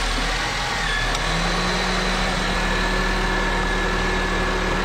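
Car engine idling steadily with a hum and a few steady tones, its power steering pump freshly topped up with fluid and no longer squealing.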